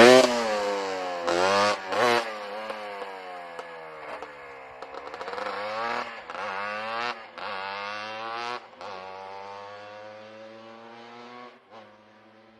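Yamaha Blaster's single-cylinder two-stroke engine revving up and down over and over, loud at first and fading as the quad moves away.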